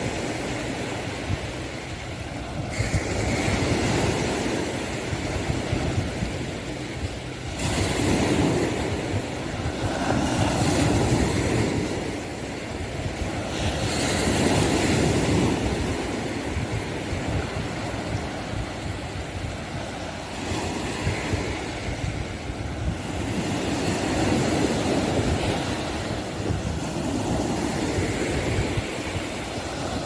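Sea surf breaking and washing on the shore, swelling and easing every few seconds, with wind rumbling on the phone's microphone.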